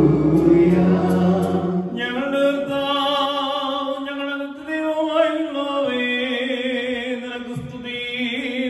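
Liturgical chanting. For the first two seconds, several voices sing over a low held note while a censer's bells jingle in a steady rhythm. Then one man's voice carries on alone through a microphone, chanting in long, wavering notes that slide between pitches.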